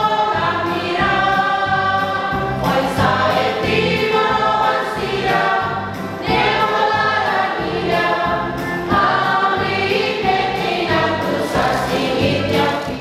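Music with a choir singing a hymn over a steady accompaniment.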